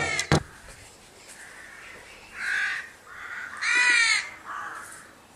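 A bird calling outside: several short, harsh calls, the two loudest about two and a half and four seconds in.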